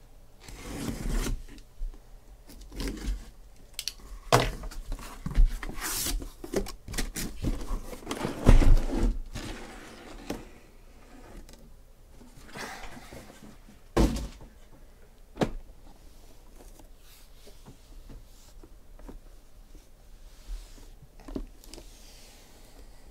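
Sealed, shrink-wrapped cardboard card boxes being pulled out of a cardboard shipping case and set down: rustling and scraping of cardboard and plastic wrap with several sharp thunks, busiest in the first half.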